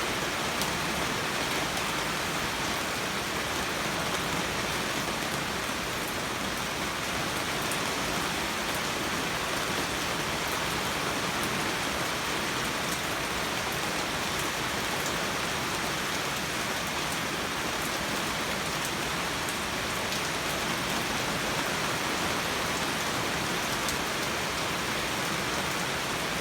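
Steady rain falling, with scattered sharp drop ticks.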